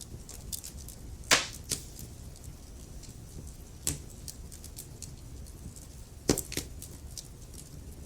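Wood fire crackling in a fireplace: burning logs give a steady low rumble under scattered small ticks and a few sharp pops. The loudest pops come about a second in and again a little past six seconds.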